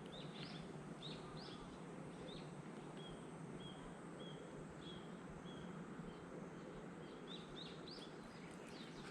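A bird calling repeatedly in faint outdoor ambience: short upswept chirps, then a run of short level high notes at about two a second, then upswept chirps again near the end.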